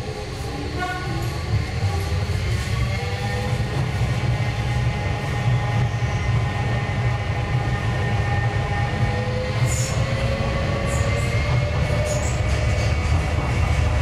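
Docklands Light Railway train running, heard from the cab: a steady low rumble of wheels on the track under several whining tones from the electric drive, which rise in pitch over the first few seconds as it gathers speed and then hold steady. A few sharp clicks come late on.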